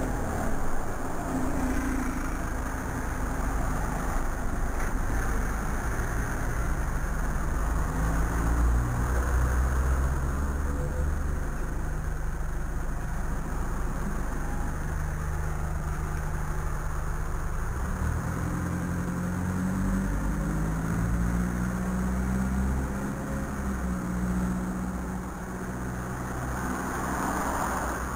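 Road traffic running close by: engines of cars and a heavier vehicle such as a bus, a steady low engine hum with the pitch shifting and rising in the second half as vehicles pull away.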